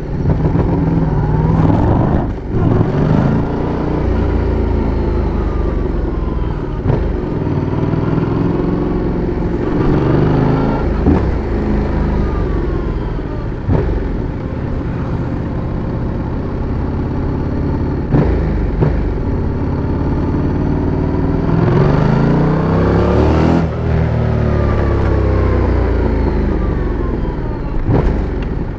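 Yamaha MT-07's 689 cc parallel-twin engine and exhaust on the move, its revs rising through each acceleration and falling away again, over and over. Short sharp knocks come between the rev changes.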